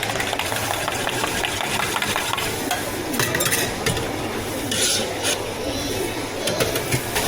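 Steady stirring and scraping noise from drink preparation behind a tea shop counter, with a few sharp clinks about three and five seconds in.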